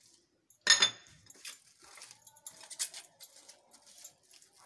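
Plastic cling film crinkling while a china plate of covered dough is handled, with small scattered clicks and rustles. The loudest sound is a sharp knock about a second in.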